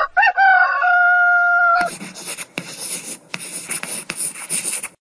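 Rooster crowing a cock-a-doodle-doo: short rising notes, then one long held note lasting about a second and a half. A rough, hissing rustle with a few sharp clicks follows for about three seconds.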